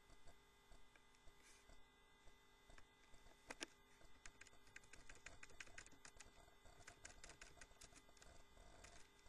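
Faint typing on a computer keyboard: a run of quick key clicks that starts a few seconds in, over a low steady electrical hum.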